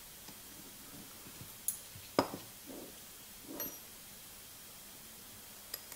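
Light metallic clicks and clinks from a small Chicago screw and the stainless linkage of an Odyssey Argos lever espresso machine's piston assembly being fitted together by hand. There are about five separate clicks, the sharpest about two seconds in, and one brief high ping a little later.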